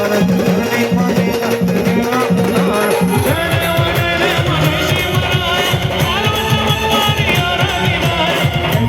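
Indian brass band playing, drums beating a steady repeating rhythm under a held note; about three seconds in, a wavering melody comes in over the drums.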